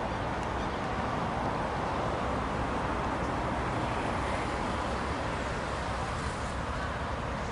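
Steady outdoor background rumble and hiss with no change in level; the cormorant itself makes no call.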